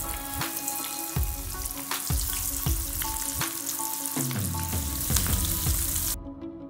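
Breaded onion rings deep-frying in hot oil, a steady sizzle with scattered crackles as more rings are dropped into the pan. The sizzle cuts off suddenly near the end.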